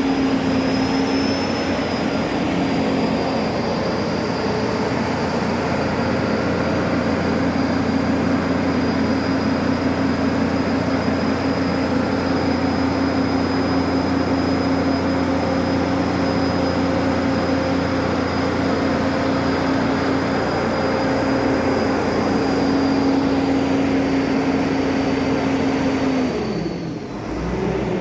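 Atlas 3306 excavator running steadily at high revs, with a thin high whine over the engine note. Near the end the engine note drops in pitch and the level dips briefly.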